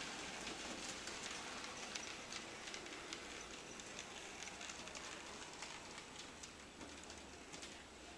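Model trains running on a layout: a soft rattle of wheels with many light clicks over the rail joints, slowly fading.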